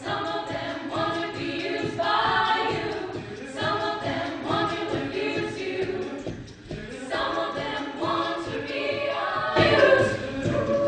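A cappella vocal group singing in harmony, with a brief lull about six and a half seconds in and the voices swelling louder near the end.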